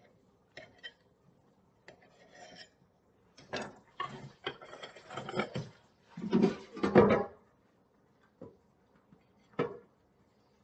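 Kitchen handling noise as an air fryer basket and a plate are handled on the counter: a few light knocks, then a few seconds of louder clattering and scraping, and one more knock near the end.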